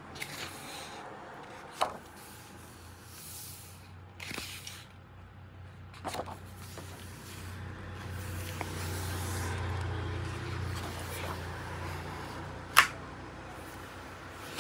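Pages of a large hardcover book being turned and smoothed by hand: papery swishes and rustles every few seconds over a low steady hum, with one sharp tap near the end.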